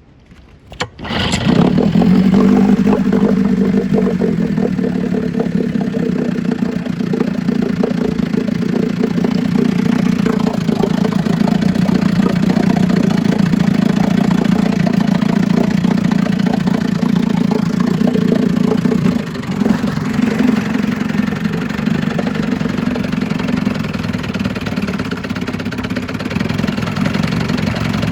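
1956 Scott Atwater Bail-A-Matic 10 hp two-stroke outboard motor starting about a second in, catching almost at once, then running steadily on its first test run after a rebuild. It dips briefly about two-thirds of the way through.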